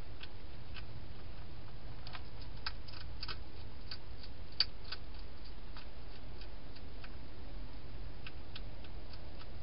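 Wild European hedgehog eating inside a plastic feeding box: irregular small clicks of chewing and food knocking about, thickest about two to three and a half seconds in, with one sharper click shortly after, over a steady low hum.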